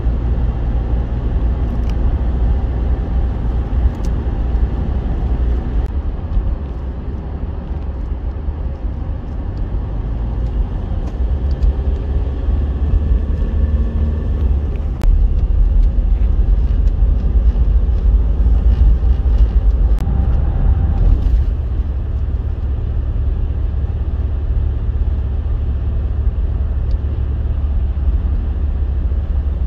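Car cabin noise while driving at road speed: a steady low rumble of tyres and engine, rising a little about halfway through.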